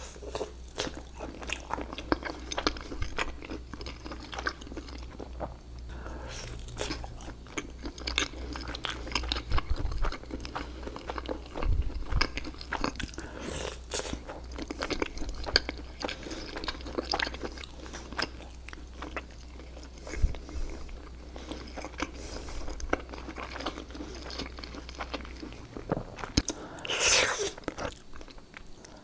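Close-miked eating: biting and chewing with crisp crunches and many small wet mouth clicks. A low hum underneath cuts out near the end.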